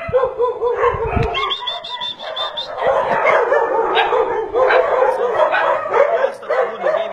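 Several dogs barking and yelping at once, a continuous overlapping chorus of short high calls.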